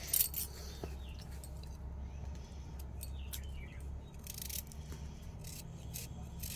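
Kitchen knife cutting ivy gourds (kundru) held in the hand: a run of short, crisp cuts at irregular intervals over a low steady hum.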